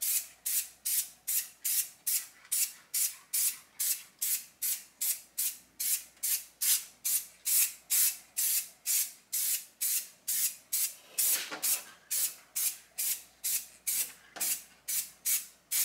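Aerosol can of spray paint hissing in short, evenly spaced bursts, about three a second, as paint goes onto a car frame.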